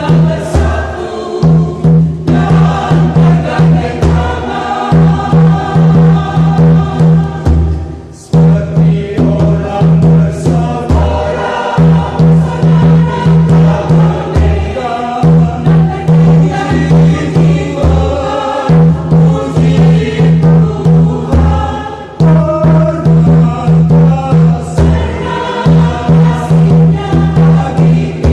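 Church choir singing a lively hymn in parts, over a steady beat of low tifa drum strokes.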